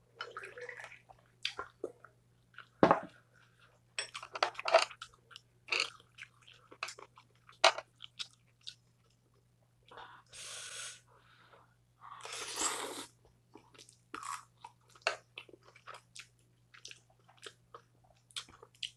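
Close-miked mukbang eating sounds: chewing and crunching with many short clicks and taps of metal chopsticks and tableware, and one sharper knock about three seconds in. Soju is poured into a shot glass at the very start.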